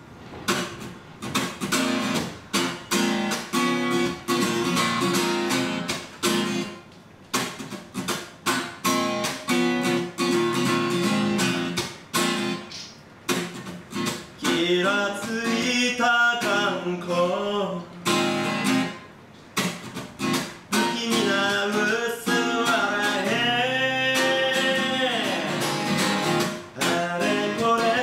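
Acoustic guitar strummed steadily, with a man singing over it from about halfway through.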